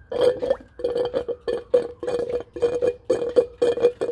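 Background music with plucked strings starting abruptly: a quick, even run of plucked notes over a steady held tone.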